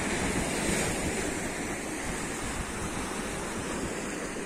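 Steady rush of waves washing on the shore, with wind on the microphone.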